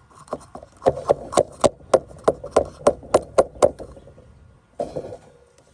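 A quick run of about a dozen sharp taps or knocks, roughly four a second, then a brief rustle near the end.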